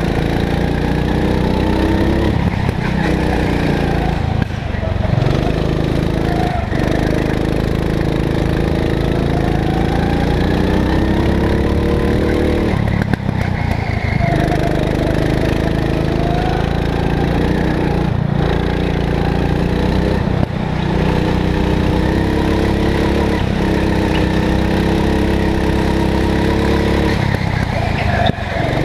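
Go-kart engine heard from onboard, running hard under throttle; its pitch rises and falls and it drops off briefly every few seconds as the throttle is lifted through the corners.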